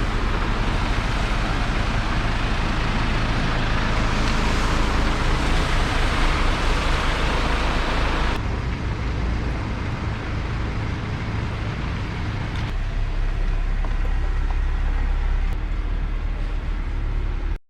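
Torrential typhoon rain with wind, a loud steady roar of noise with a deep rumble underneath. The sound changes abruptly about eight seconds in, losing much of its hiss, and shifts again near thirteen seconds.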